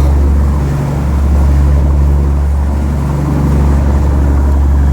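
Sport-fishing boat's engine running steadily under way, a loud low drone that dips and swells again every two to three seconds.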